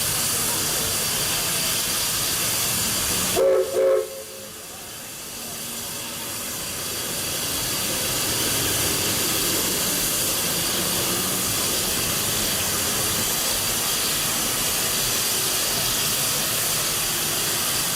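Steam locomotive hissing steadily. About three and a half seconds in, its replica Baldwin three-chime steam whistle gives two quick toots, the usual signal for moving off. The hiss then drops away and builds back up over the next few seconds.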